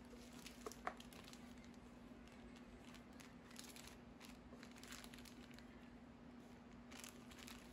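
Faint crinkling of small clear plastic zip bags being handled, with two light clicks about a second in, over a steady faint hum.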